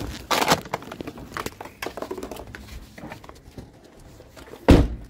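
Clicks, knocks and rustling as a car door is opened and a person climbs out of the car, with one loud thump near the end.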